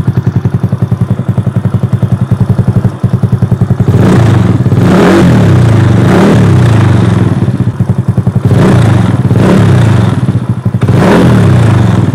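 Yamaha Mio Sporty scooter's single-cylinder engine through a Sun Racing Cobra aftermarket exhaust with the silencer removed, idling with an even pulsing beat, then revved up and down about four times from about four seconds in.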